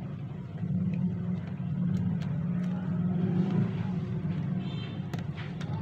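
A steady low mechanical hum, with a few faint clicks as the toner cartridge's plastic parts are handled.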